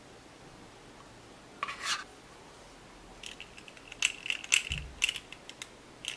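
Spring-loaded stainless-steel ice cream scoop being squeezed. There is a short scrape, then a run of metallic clicks and rattles from its trigger and sweep blade, with one dull thump in the middle.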